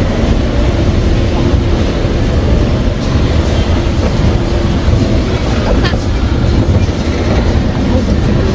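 Moving escalator running with a steady low mechanical rumble.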